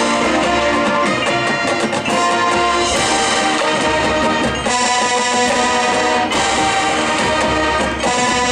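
Marching band playing: brass sustaining loud chords that change every second or so, with drums underneath.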